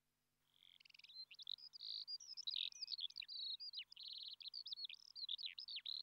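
A songbird singing a long, varied song of quick high whistles, slurred notes and rapid trills, starting about half a second in.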